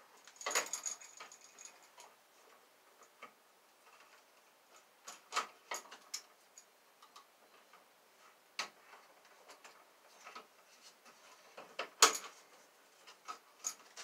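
Scattered light clicks and ticks of an electrical wall outlet and its wires being handled at an electrical box, with a louder sharp click near the end.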